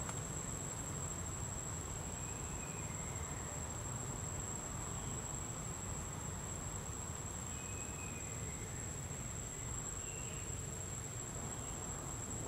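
An insect, such as a cricket, trilling in one steady high tone, with a few faint chirps over a low outdoor background hum.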